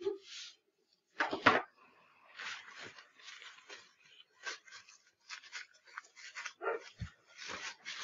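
Paper drapes and plastic catheter-kit packaging being handled and moved: a run of irregular crinkling rustles, loudest about a second in.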